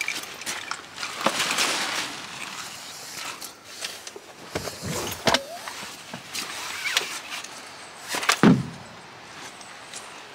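Fishing gear being handled in a vehicle's back seat: rustling of bags and clothing with scattered clicks and knocks. A heavy thump comes about eight seconds in.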